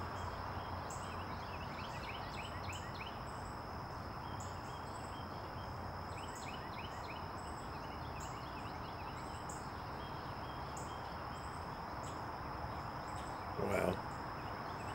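Insects and birds: a steady high-pitched insect drone, short high chirps repeating about once a second, and a few bouts of quick twittering notes, with a brief louder call near the end.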